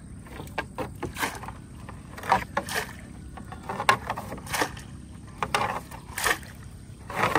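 Water splashing and sloshing in a series of irregular splashes, about one a second, the loudest a little over two seconds and about four seconds in.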